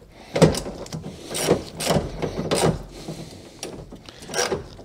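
Hand ratchet and socket clicking in short, irregular strokes as it loosens a bolt holding the power window regulator inside the car door.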